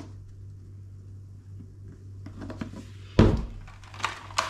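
A heavy thud of something set down on the kitchen worktop about three seconds in, followed by two lighter clicks as things are handled. A steady low hum runs underneath.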